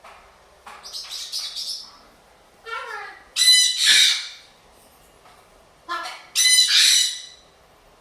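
Pet parrots, a blue-and-gold macaw and a sun conure, squawking and screeching in harsh calls, about five of them with gaps between. The two loudest come around the middle and near the end.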